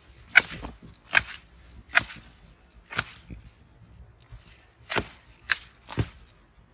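Long-handled garden cutters snipping through plant stems: seven sharp snaps of the blades closing, about one a second at first, then three in quick succession near the end.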